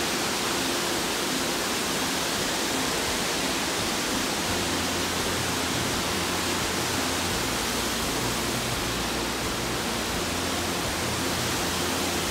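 Steady rush of a fast whitewater river pouring over rocks, with a waterfall falling into it.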